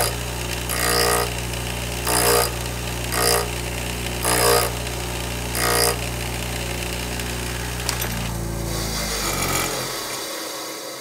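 A bench grinder runs with a steady hum while a drill bit held in a Shop Fox sharpening jig is pivoted against the grinding wheel, sharpening the bit's second side. Five short, gritty grinding passes come about a second apart, then the grinder's hum fades away as the wheel spins down near the end.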